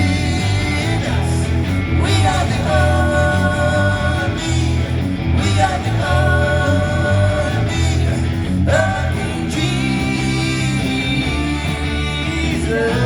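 Band playing an upbeat Christian rock song led by guitar, with long held notes over a moving bass line.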